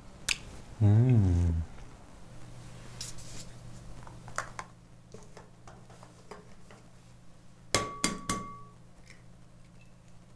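Eggs being tapped and cracked on the rim of a bowl: a few sharp clicks, then three quick strikes near the end with the bowl ringing briefly. About a second in there is a short, loud warbling tone.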